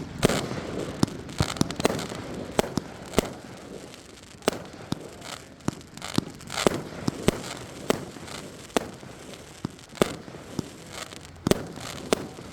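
A 25-shot consumer firework cake (PGI's 'We the People') firing: a string of sharp booms and reports at uneven intervals, with crackling between the shots.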